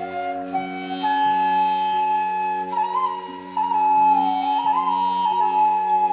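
Indian classical-style instrumental music: a flute playing a slow, held melody that steps up and down, over a steady drone.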